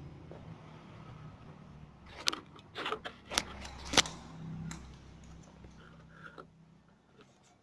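A handful of sharp clicks and knocks of hard objects being handled, bunched together about two to five seconds in, over a low machine hum that fades away toward the end.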